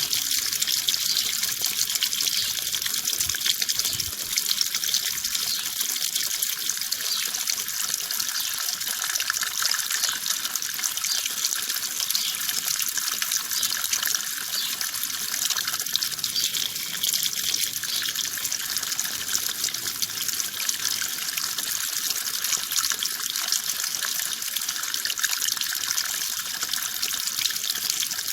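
Water running steadily: an even, continuous splashing hiss, mostly high-pitched with almost no low rumble.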